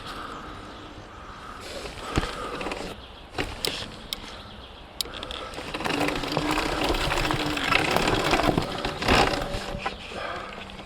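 Surron Ultra Bee electric dirt bike with a TORP TM50 Pro motor riding off-road: a faint motor whine with sharp knocks from the bike over rough ground about two and three and a half seconds in, then from about six seconds the motor whine louder under throttle with rattling from the chassis.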